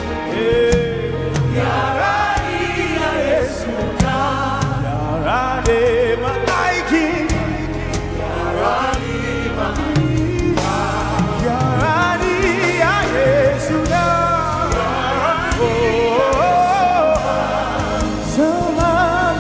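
Live gospel worship music: a congregation and backing voices singing a slow chant-like worship song over band accompaniment with a steady bass.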